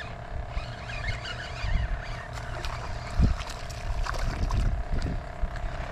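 A small hooked snook splashing and thrashing at the water's surface as it is reeled in toward the boat. Wind rumble on the microphone and a steady hum run underneath, with a single knock about three seconds in.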